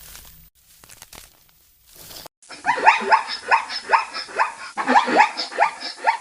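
An animal giving a rapid series of barking calls, each a quick falling yelp, about three a second, starting suddenly about two seconds in.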